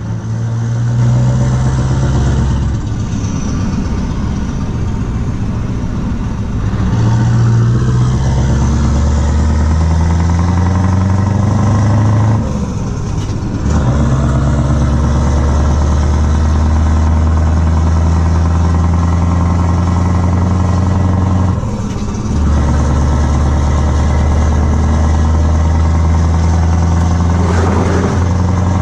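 Scania R500's V8 diesel engine with open exhaust pipes, driving and pulling hard with a deep, steady drone. It drops off briefly twice, about twelve and twenty-two seconds in, as the gears are changed.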